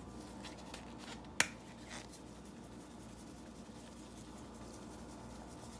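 Quiet kitchen room tone with one sharp click about a second and a half in, and a couple of fainter ticks.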